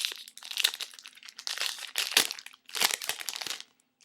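Plastic wrapper of a basketball trading card pack crinkling in four bouts as it is handled and opened.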